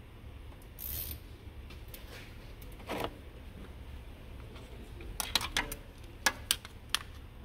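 Handling noise from a telescoping inspection mirror among the timing-belt parts of a diesel engine: a couple of soft scuffs, then a quick run of sharp clicks and light metal taps about five to seven seconds in.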